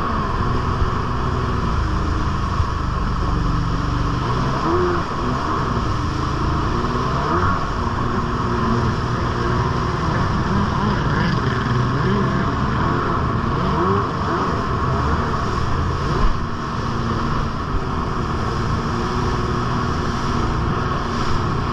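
Jet ski engine running at speed, its pitch rising and falling every few seconds as the craft crosses the wake, over a steady rush of water spray.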